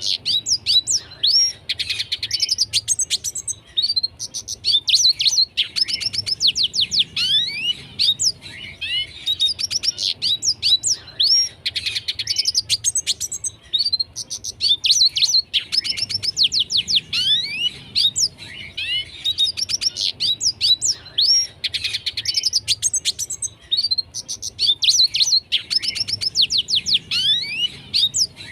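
Red siskin singing: an unbroken run of fast twittering phrases, each a couple of seconds of rapid high chirps and quick downward-sweeping notes, with short pauses between phrases.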